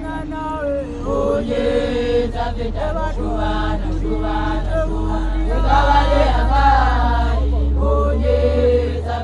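Basotho women initiates singing a chant together, several voices in harmony, swelling louder past the middle and easing off near the end. A steady low rumble runs beneath the singing.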